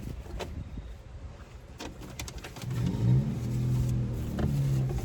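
A motor vehicle's engine comes up about halfway in, rising in pitch and running steadily for a couple of seconds before easing off. A few light clicks come before it.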